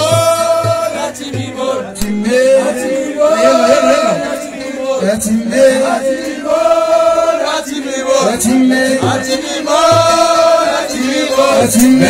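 Men of a Touat folk ensemble singing a chant, with long held notes recurring about every three seconds, over percussion strikes.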